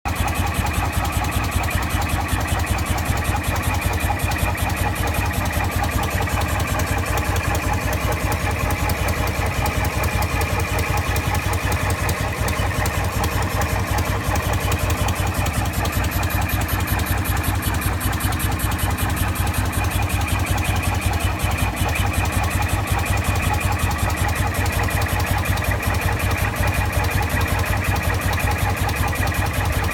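BMW motorcycle engine running steadily with an even, rapid beat and no revving, carrying a noise the owner cannot identify.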